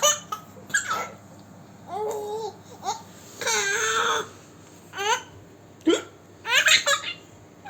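A young girl hiccupping, with short, sudden high-pitched sounds about every second or so, mixed with laughter and babbling. There are two longer voiced sounds, about two seconds in and again about three and a half seconds in.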